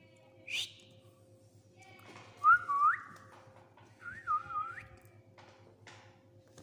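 Whistled notes: a short rising chirp, then two longer whistles that glide and waver up and down in pitch, the first of them the loudest.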